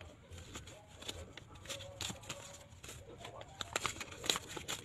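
Paper envelopes and banknotes rustling and crinkling as they are handled and opened, a run of short crackles.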